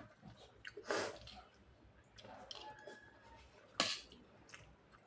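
Close-up eating sounds of curd rice mixed with potato fry: soft wet squishing and chewing, with two sharper sounds, one about a second in and a louder one near four seconds.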